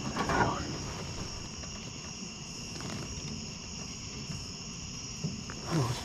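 Summer night insect chorus: a steady, high-pitched trilling drone at a couple of pitches, with a brief scuffing noise just after the start.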